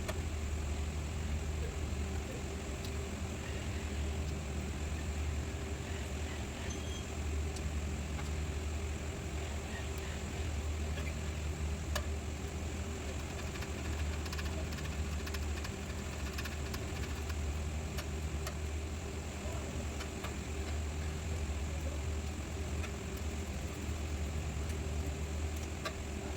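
A steady, low mechanical hum, like an engine running at idle, with a few light clicks and taps scattered through it.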